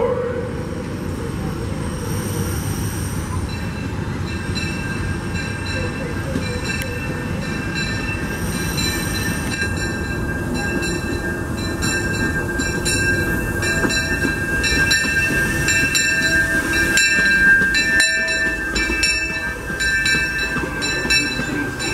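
Disneyland Railroad's C.K. Holliday #1, a narrow-gauge steam locomotive, rumbles slowly into a station pulling passenger cars. From about ten seconds in, a steady high squeal from the wheels and regular clicks at the rail joints come in as the cars roll past.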